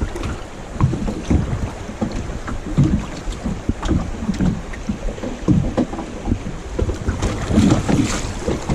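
Kayak drifting through moving river water: water sloshing and splashing against the hull, with wind buffeting the microphone in irregular thumps.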